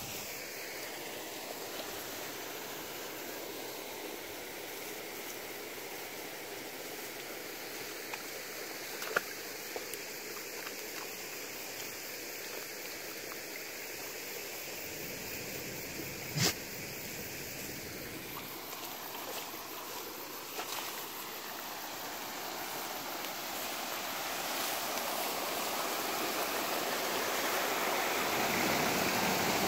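River water flowing in a steady rush that grows louder over the last few seconds, with a couple of brief knocks partway through.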